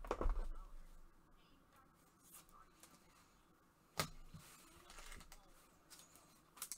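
Trading cards and their plastic holders handled by gloved hands. There is a rustle and bump in the first second, a single sharp click about four seconds in, and a couple of small clicks near the end.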